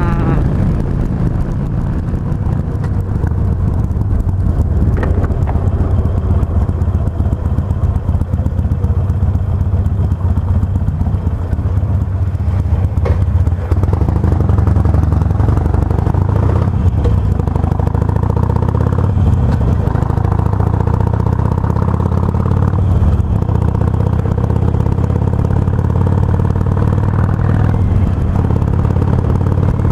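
Harley-Davidson Sportster 883R's air-cooled V-twin engine running steadily on the road, its note rising and falling a few times in the second half as the speed changes.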